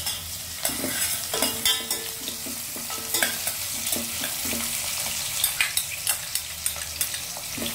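Chopped onions sizzling in hot groundnut oil in a stainless steel pot, a steady frying hiss. A steel spoon scrapes and clinks against the pot as they are stirred, irregular strikes several times a second.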